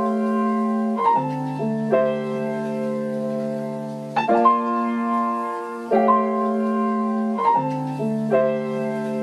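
Solo piano playing slow sustained chords, each struck and left to ring, a new chord about every second and a half, as an instrumental interlude in a pop ballad.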